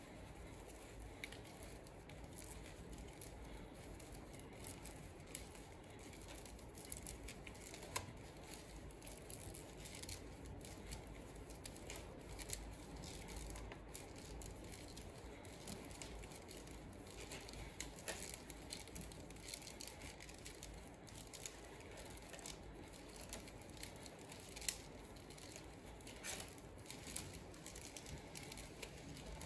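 Nylon trimmer line being wound by hand onto a plastic Stihl trimmer-head spool: faint rustling and scraping of the line, with scattered light clicks and a few sharper ticks.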